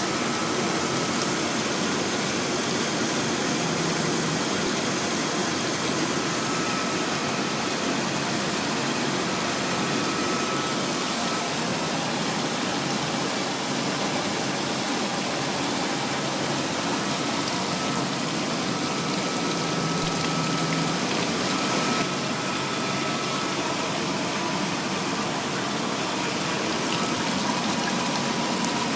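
Taco cooling tower pump running with a steady rush of water; the pump is leaking.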